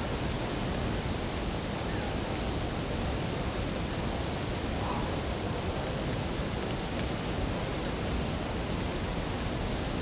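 Tegenungan waterfall's steady rushing: an even, unbroken wash of falling water.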